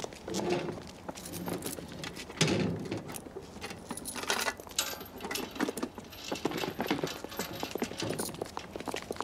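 Irregular knocking and clattering, with a louder thud about two and a half seconds in.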